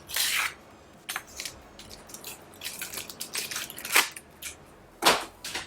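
Laptop parts being handled on a workbench: a brief rustle, then a run of small irregular clicks, taps and scrapes, with sharper ticks about four and five seconds in.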